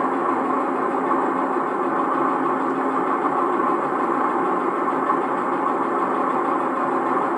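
Diesel engine of a JNR DE10 diesel-hydraulic locomotive running at a steady speed, heard from the deck of the coach coupled behind it, on an old cassette recording.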